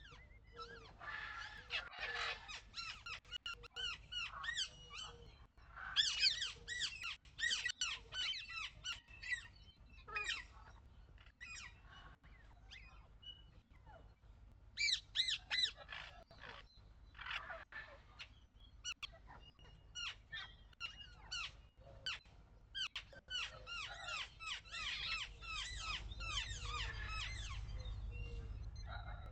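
Small birds singing outdoors: quick, busy twittering and chirping in repeated bursts. A low wind rumble on the microphone grows stronger near the end.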